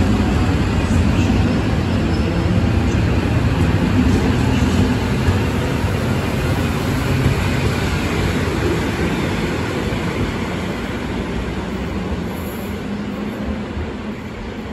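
ED72A electric multiple unit pulling out of the station past the platform: a steady rumble of wheels and running gear on the rails. The rumble fades over the second half as the last car passes and the train draws away.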